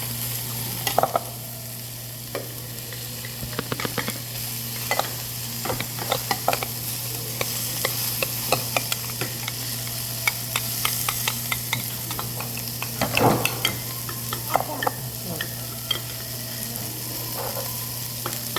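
Beef sizzling steadily on a grill, with metal utensils repeatedly clicking and scraping against dishes, loudest about 13 seconds in, over a steady low hum.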